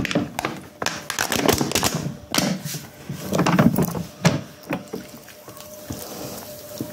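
Irregular knocks, clicks and rustling from spice packets and a plastic bowl being handled on a table while spices go onto meat and onion.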